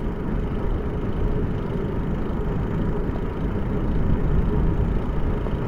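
Steady wind rush and tyre rumble from a bicycle riding along an asphalt road.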